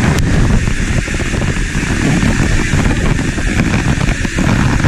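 Loud, steady rush of water pouring over a dam spillway and running past the wader, mixed with wind buffeting the microphone.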